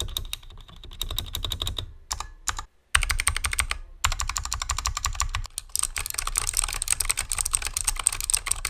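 Typing on a Razer Huntsman Mini with Razer Purple clicky opto-mechanical switches under HyperX Pudding double-shot PBT keycaps: rapid, continuous keystrokes. There is a brief pause just before three seconds in, then even faster typing.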